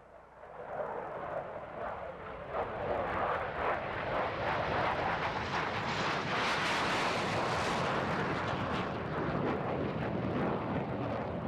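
Short SC.1's single Rolls-Royce RB.108 turbojet propulsion engine running at take-off power as the jet takes off and climbs away. The jet noise swells over the first couple of seconds, is loudest around the middle and eases a little near the end.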